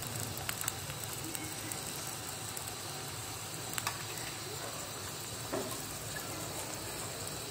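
Chopped onions frying in hot ghee in a pan: a steady, faint sizzle with a few small pops scattered through it.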